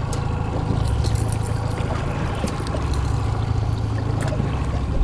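Boat's outboard motor running steadily at trolling speed, a low even drone, with a few light clicks over it.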